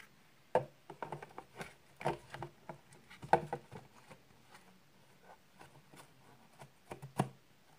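Cardboard box lid being fitted onto the box and handled: a string of irregular taps and knocks.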